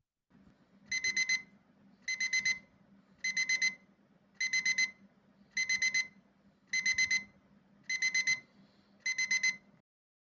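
Electronic alarm-clock beeper sounding the classic pattern: quick groups of four high beeps, eight groups repeating a little over once a second.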